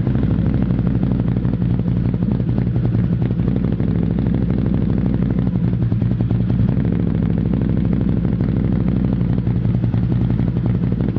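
Mitsubishi Outlander engine idling roughly after a cold start, running steadily without revving.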